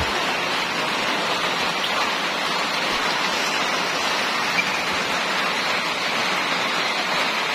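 Steady, even hiss of rain falling, loud and unbroken.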